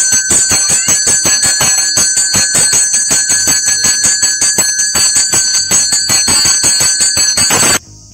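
A pair of bronze puja handbells (jodi gante) shaken together in quick, even strokes, about four a second, over a bright, sustained ring of several high tones. The ringing cuts off suddenly near the end.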